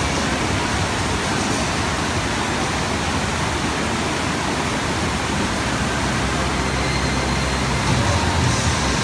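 Steady, loud rush of water sheeting up the slope of a surf-simulator wave ride, with a low hum underneath that grows clearer in the second half.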